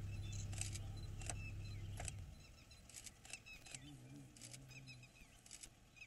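A vehicle engine idling as a steady low hum, which cuts off about two seconds in. Faint high chirps and clicks carry on throughout, with a brief low murmur near the middle.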